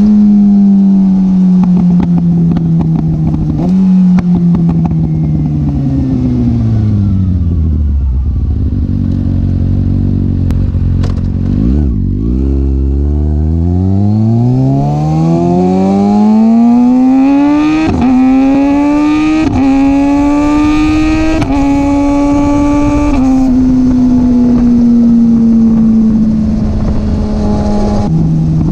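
2021 Kawasaki ZX-6R 636 inline-four running through an M4 exhaust with a de-catted baffle, heard close at the pipe. The engine note falls slowly as the bike slows, then climbs again under acceleration with a few short steps at gear changes, and eases off near the end, with a few sharp pops along the way.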